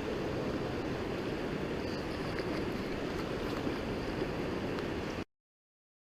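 Steady rushing of river water, cutting off abruptly to silence about five seconds in.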